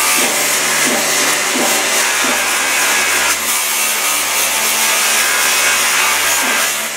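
Metal cooking-spoon blank being ground against an abrasive wheel driven directly by an electric motor: a steady, loud grinding hiss over the motor's low hum.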